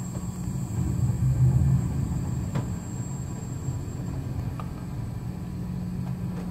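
Strong wind buffeting the microphone over a storm-tossed sea: a steady low rumble that swells between one and two seconds in.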